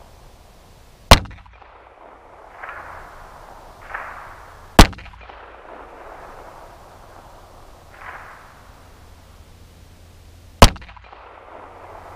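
Three single shots from a .380 ACP compact pistol, a few seconds apart, heard from near the target about 15 yards downrange, each a sharp crack with a short echo.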